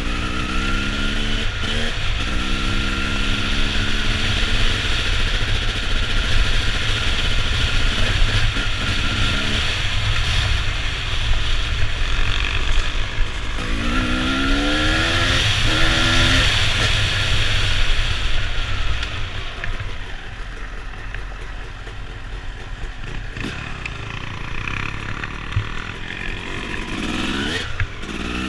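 Motorcycle engine running under way, revving up in rising sweeps near the start, about halfway through and again near the end, and easing off in between. Wind rumble on the microphone runs underneath.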